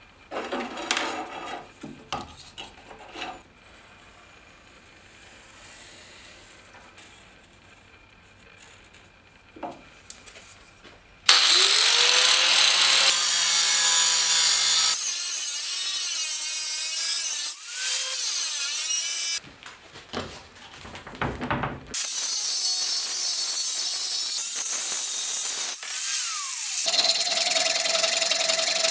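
Light handling and rubbing sounds of a paper template on a steel plate, then an angle grinder cutting through a clamped O1 tool-steel blank. The cutting starts abruptly about eleven seconds in, stops for a couple of seconds with a falling whine, starts again, and settles into a steadier sound with a held tone near the end.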